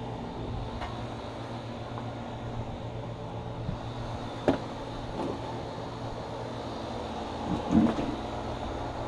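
A few sharp knocks and clatters of metal grill parts being handled during cleaning of a charcoal grill, the loudest about four and a half seconds in, with a brief louder rattle near the end, over a steady low hum.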